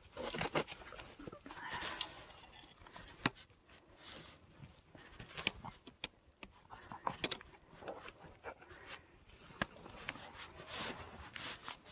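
Hiking boots stepping and scuffing down icy, gritty rock: irregular sharp clicks and short scrapes of boot soles on ice and sand.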